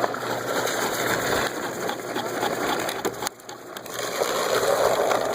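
Apples being ground in a homemade cider grinder: a dense, continuous crunching and crackling that drops away briefly a little over three seconds in, then starts again.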